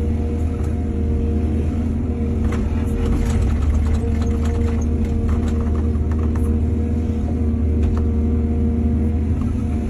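Heavy diesel engine of an excavator running steadily under load, with a spell of light knocks and clatter through the middle.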